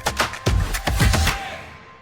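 Background music with a steady drum beat and electronic percussion. The beat stops about a second and a half in and the music fades away.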